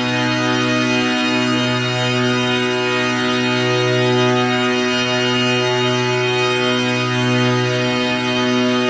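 Music: a sustained, unchanging instrumental chord, held without vocals or beat.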